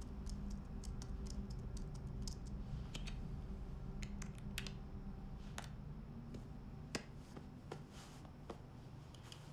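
Sparse, irregular small sharp clicks from fidgeting fingers, over a low steady hum that eases off in the second half.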